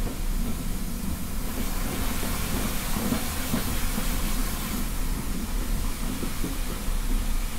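Steam-hauled passenger train behind Midland 4F 0-6-0 No. 43924, running with a steady low rumble. A hiss comes up about one and a half seconds in and dies away about five seconds in.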